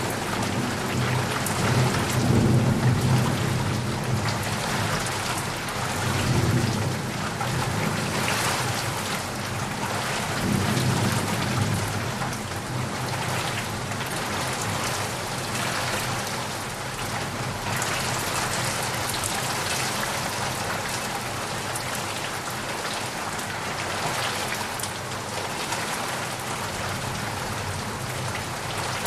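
Heavy rain falling steadily, with a low rumble of thunder through the first ten seconds or so that then dies away, leaving only the rain.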